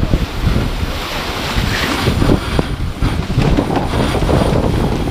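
Wind buffeting the microphone on a sailboat under way, with water splashing along the hull; the noise comes in uneven gusts.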